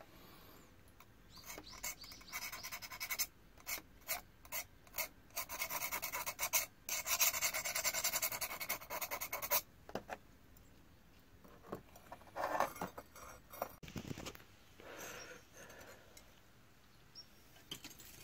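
Rasping scrapes of a wooden stick rubbed hard along a wet steel knife blade. The strokes come thick and fast for several seconds, then stop, with a few scattered scrapes later on.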